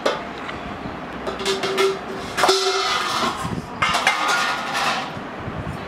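Stainless-steel cup and plate clinking and scraping as spice powder is scooped and levelled: several light clinks, then two longer scrapes about halfway through and again a second later. A steady tone runs for a second or two before the first scrape.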